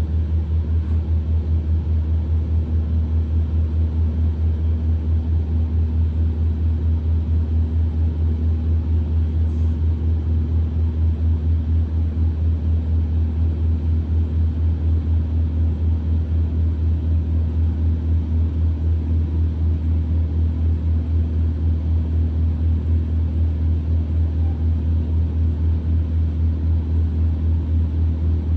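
Wood chipper's engine running steadily at idle, a low rumble with an even, rapid throb.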